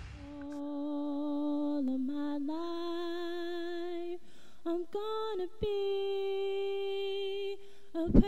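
A woman's voice singing unaccompanied, a slow melody in long held notes with short breaks between them, rising in pitch after about two seconds.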